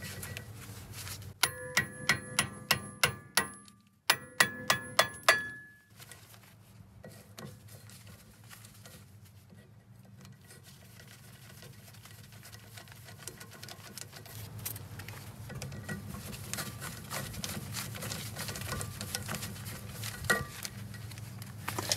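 Hammer striking a hand impact screwdriver set in the flathead screws that hold a brake rotor to the axle hub. There are two quick runs of sharp, ringing metal-on-metal blows, about three a second, as he works to break the screws loose.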